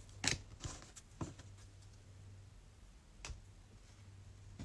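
Trading cards and card packs being handled: a few soft clicks and taps spread apart, over a quiet room with a faint low hum.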